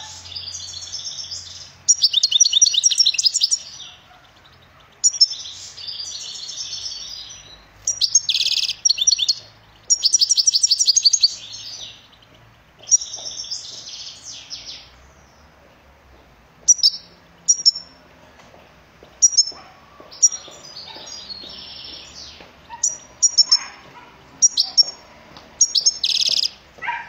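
European goldfinch singing. For the first half it sings long runs of rapid, high twittering phrases; after that come shorter, separate chirps and brief phrases, with a loud burst near the end.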